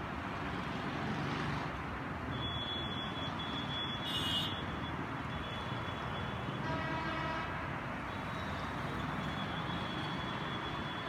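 Steady hum of dense expressway traffic, tyres and engines of cars and motorbikes. Vehicle horns sound twice: a short high toot about four seconds in and a longer horn around seven seconds.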